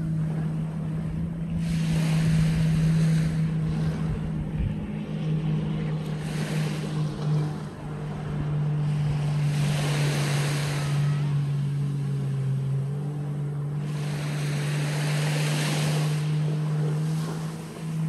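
Small waves washing up onto a sandy beach, swelling and fading every few seconds, over a steady low engine hum that drops slightly in pitch about seven and a half seconds in.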